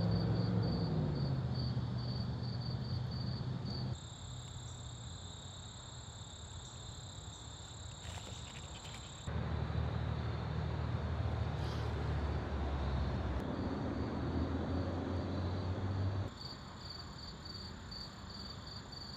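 Outdoor evening ambience of crickets chirping in a fast, even pulse, joined for a few seconds by a steady high insect trill. A low rumble comes in at the start and again, louder, through the middle stretch, and it sounds like road traffic.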